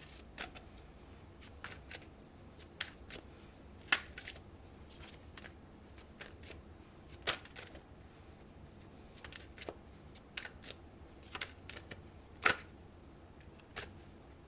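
A deck of oracle cards being shuffled by hand: irregular card snaps and flicks, with the sharpest snaps about 4 seconds in and near the end.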